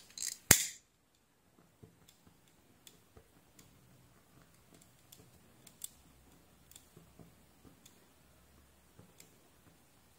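A lighter struck once with a single sharp snap about half a second in, followed by faint, scattered ticks of hands handling the charger cable.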